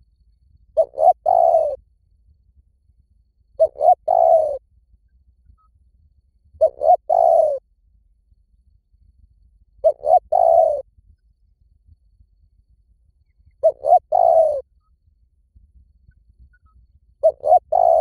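Spotted dove cooing: a short two-note lead-in followed by a longer coo, repeated six times at an even pace of about one phrase every three seconds.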